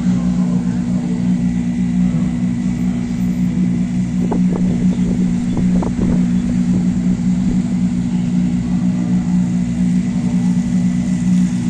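Steady loud engine hum, unbroken and even in pitch, with a few short sharp clatters about four to six seconds in.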